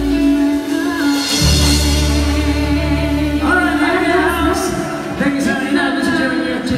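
Live cover band playing a pop ballad, with a woman singing long held notes over sustained bass and chords; the vocal line bends and moves about halfway through.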